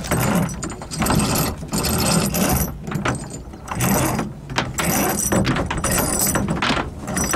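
Rope halyard pulled through the blocks on a catboat's gaff and bridle in a series of rasping strokes, about one a second, with the block sheaves turning.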